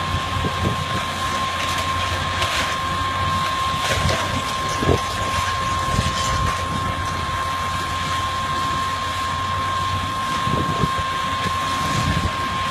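Demolition machinery running steadily, with a low rumble and a constant high-pitched whine, while short knocks and crunches of breaking debris come every second or two.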